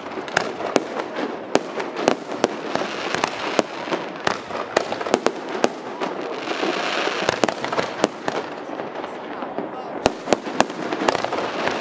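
Aerial fireworks shells bursting overhead: a long run of sharp bangs at irregular intervals, sometimes several close together, over a steady background din.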